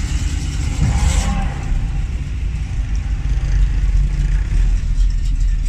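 Ural truck's engine running with a steady low rumble.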